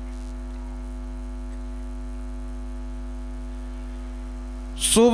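Steady electrical mains hum from a live PA system, a low buzz with a steady higher tone above it. Near the end a man's voice cuts in with a hissed 's' and begins chanting a Qur'an recitation.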